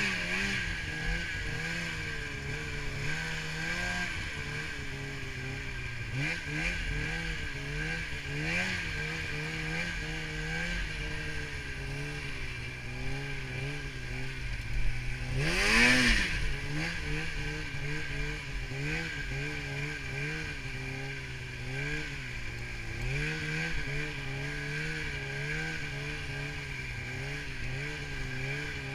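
Polaris snowmobile engine running under throttle through deep powder, its pitch rising and falling as the throttle is worked, with a steady high whine. About halfway through a loud rushing burst comes with a sharp rev.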